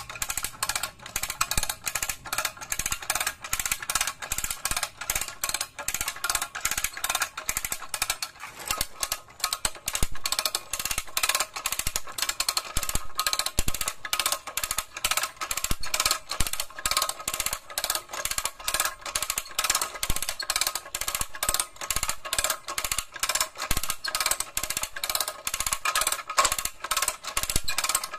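4-ton hand-lever cable winch (come-along) being worked by its handle: the ratchet gear turns under the pawl in a steady run of rapid metallic clicks.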